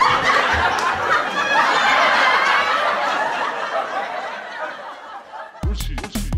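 Audience laughter, a laugh track following a punchline, fading out over about five seconds. Music with a heavy drum beat comes in near the end.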